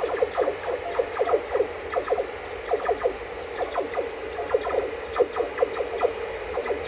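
Steel wheels of a locomotive-hauled passenger train squealing and screeching against the rails as it rounds a curve: a steady squeal overlaid with many short irregular squeaks.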